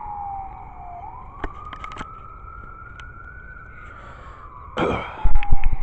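Ambulance siren in a slow wail, its pitch sliding down, rising again, then falling once more. A few sharp clicks, and near the end a burst of loud rustling and thumps close to the microphone.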